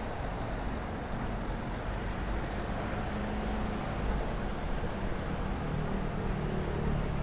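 Road traffic: motor vehicle engines running close by, a steady low rumble with an engine hum that comes in a few seconds in and again near the end.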